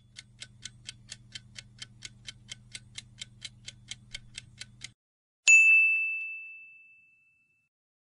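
Quiz countdown-timer sound effect: rapid clock ticks, about five a second, over a low steady hum for about five seconds. Then a single bright ding that rings out and fades, marking the answer reveal.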